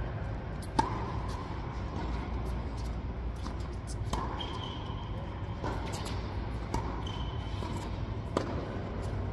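Tennis rally: racquets strike the ball and the ball bounces on the hard court. This makes a string of sharp pops; the loudest comes a little under a second in and another near the end, over a steady low hum.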